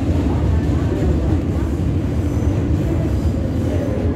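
New York City subway train running over elevated steel track, heard from inside a moving car: a steady, loud low rumble of wheels on rails and the train's running gear.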